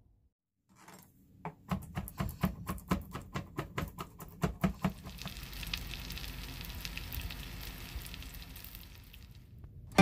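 A quick run of sharp taps, about four a second, then steady sizzling of batter-coated chicken breast pieces shallow-frying in oil in a nonstick pan.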